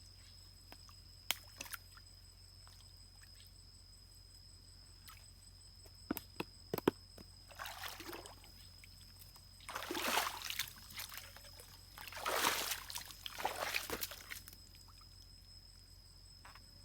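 Water splashing and sloshing in three bursts, the longest near the end, after a few sharp knocks or clicks.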